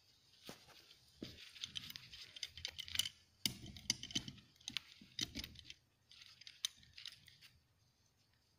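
Hand-held cable insulation chamfer tool being handled and fitted onto a cable end: irregular metal clicks, rattles and short scrapes in uneven bursts, stopping about a second before the end.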